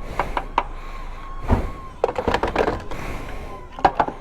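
A series of sharp clicks and knocks, with a heavier thunk about one and a half seconds in and another sharp knock near the end, over a faint steady tone.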